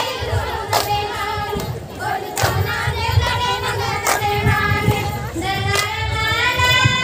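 Women singing a Tamil kummi folk song together, with regular hand claps from the dancers keeping the beat.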